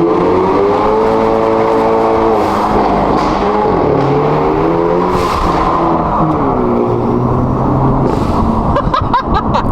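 Hyundai Elantra N's turbocharged 2.0-litre four-cylinder, with its exhaust resonator deleted by a titanium mid-pipe, accelerating hard from a launch. The engine note climbs in pitch and drops back at upshifts about two and a half and five and a half seconds in, then climbs again.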